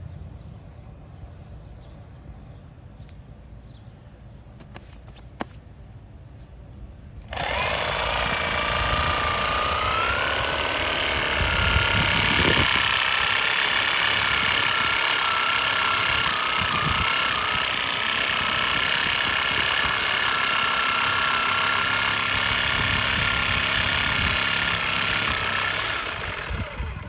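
Reciprocating saw cutting into a tree's roots: after about seven quiet seconds the motor starts suddenly and runs steadily, its whine dipping and rising as the blade bites, then it tails off near the end.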